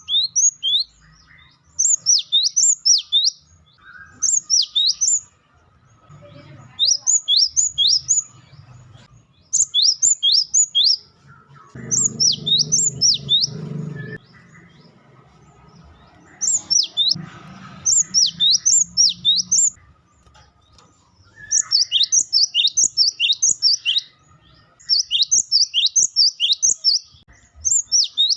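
Cinereous tit (gelatik batu) giving its rapid 'wucitan' chirp series: loud bursts of about three to six sharp, high notes, each sweeping steeply down, repeated every second or two with short pauses between.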